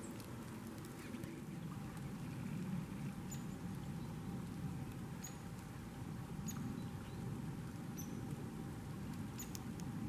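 Faint outdoor ambience in snowy woods: a steady low rumble with scattered short, very high ticks about once a second.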